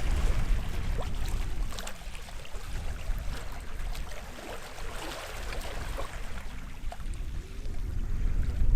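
Small waves washing onto the shore, water lapping and fizzing with scattered little splashes, ebbing mid-way and swelling again near the end. A low rumble of wind on the microphone runs underneath.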